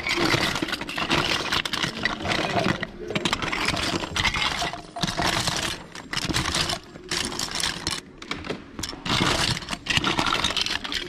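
Hard plastic toy figures and parts clattering and rattling against each other as hands rummage and sift through a bin of them, in a dense, uneven run of clicks and knocks.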